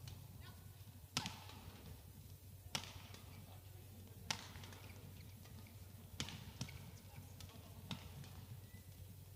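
Badminton rackets striking the shuttlecock during a doubles rally: three sharp hits about a second and a half apart, then several softer, quicker hits after about six seconds, over a low steady hum.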